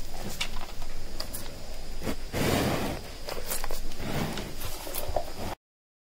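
Yak feeding on a pile of greens: irregular rustling, scraping and crunching as it pulls at and chews the leaves. The sound cuts off abruptly about five and a half seconds in.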